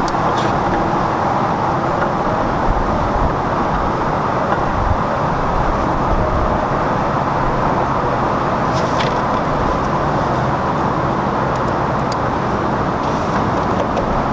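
Steady noise of road traffic, with a few faint clicks as a headlight bulb is twisted into its socket, about two thirds of the way through.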